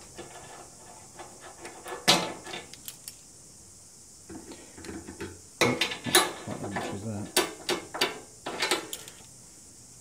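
Mole grips (steel locking pliers) being handled and adjusted on a steel workbench and clamped onto a steel plate: scattered metal clinks and clicks, one sharp click about two seconds in and a quick cluster from about six to nine seconds in.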